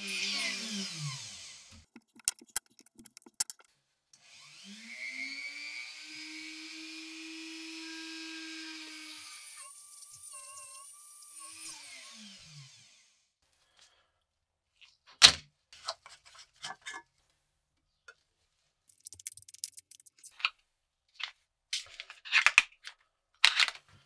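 A small electric power tool winds down. About four seconds in it spins up, runs steadily for several seconds and winds down again. Scattered clicks and taps follow, with one sharp knock about fifteen seconds in.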